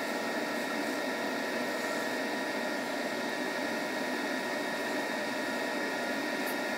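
Wood lathe running while a skew chisel takes light cuts along a spinning segmented end-grain pen blank: a steady whirring hiss with a thin high whine.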